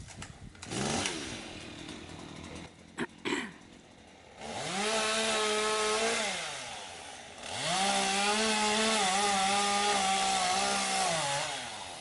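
Chainsaw revved to full throttle twice, a short burst and then a longer one, each rising, holding steady and dropping back to idle, as it cuts up fallen branches. Two short knocks come just before the first burst.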